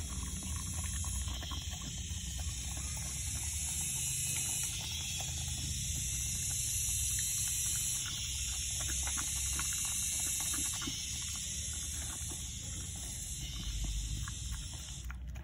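A dog eating soft rice from a bowl: many quick, irregular wet chewing and smacking clicks over a steady hiss.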